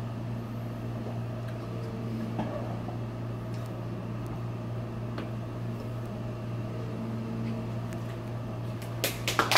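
Steady low machine hum, like a running fan or ventilation unit. A few faint clicks occur, with a couple of sharper clicks near the end.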